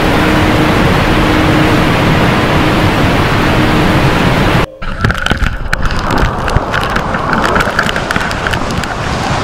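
Steady roar of a waterfall plunging into a narrow gorge, which cuts off sharply about halfway through. Then gusty wind buffets the microphone beside a car.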